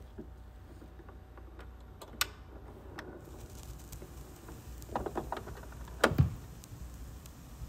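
Turntable stylus riding the lead-in groove of a spinning vinyl record: scattered clicks, faint surface hiss setting in about three seconds in, and a louder pop with a low thump near the end, before any music.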